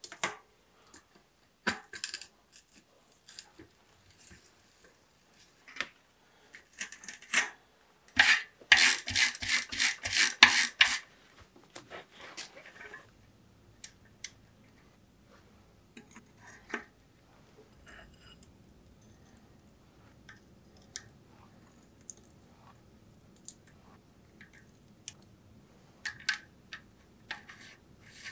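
Metal clicks and clinks from hand work on a bicycle rear hub and cassette. About eight seconds in comes a run of rapid ratcheting clicks lasting some three seconds. Later come softer, scattered taps as cogs are handled and slid onto the freehub.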